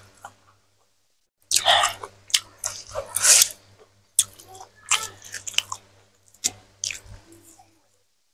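Close-miked chewing of a mouthful of boiled cassava leaves eaten by hand, with wet smacks and crunches. The sounds are densest between about one and a half and three and a half seconds in, then come as spaced single smacks.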